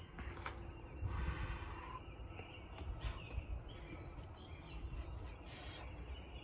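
Outdoor ambience: birds chirping a few times over a low rumble, with two longer rushing noises, one about a second in and one near the end.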